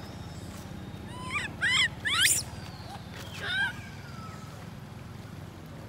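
Infant long-tailed macaque crying: a quick run of short, shrill, high calls about a second and a half in, loudest just after two seconds, then one more falling call about three and a half seconds in. These are the distress cries of a baby left alone by its mother.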